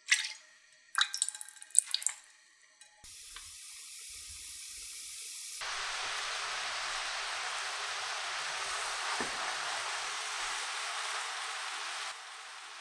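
Sugary orange sauce boiling hard in a nonstick frying pan, a steady sizzling, bubbling hiss that sets in about three seconds in and gets louder a couple of seconds later. Before it, a few sharp clatters.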